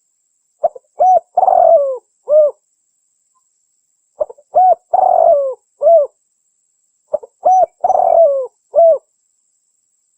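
Spotted dove cooing: three repeated phrases about three seconds apart. Each phrase is a couple of short coos, then a longer drawn-out coo that falls in pitch, then a final short coo.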